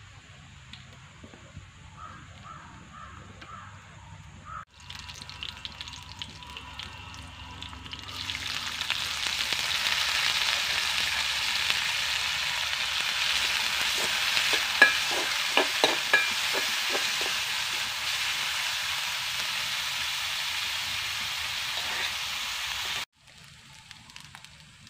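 Garlic and mustard seeds frying in an aluminium pot, giving a steady sizzle that builds about a third of the way in and cuts off abruptly shortly before the end. Midway there is a quick run of sharp clicks from stirring.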